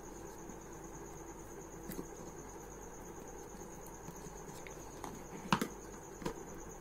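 A few small clicks and taps of hands making and tightening a wire connection, the loudest about five and a half seconds in, over a faint steady high-pitched trill.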